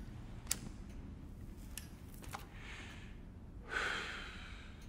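Quiet film room tone with a low hum, a few faint small clicks and a soft breathy rush near the end.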